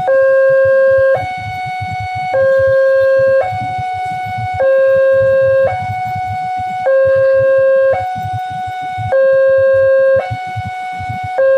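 Railway level crossing warning alarm sounding from the loudspeaker on the signal post: an electronic two-tone signal alternating steadily between a louder low tone and a higher tone, each held just over a second. It is the crossing's active warning that a train is approaching, with waiting road traffic rumbling underneath.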